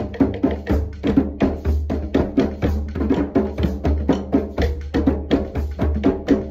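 A group of djembes and a conga played together by hand in a steady, busy rhythm, with one drum struck with sticks.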